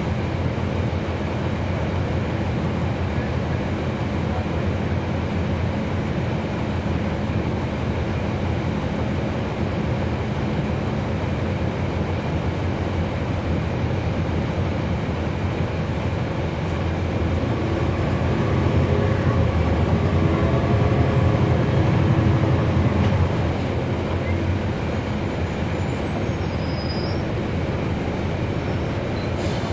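Cummins ISL9 diesel engine of a 2011 NABI 40-foot transit bus, heard from inside the bus as it rides, running with a steady low drone. The engine sound swells louder for about five seconds past the middle, then eases back.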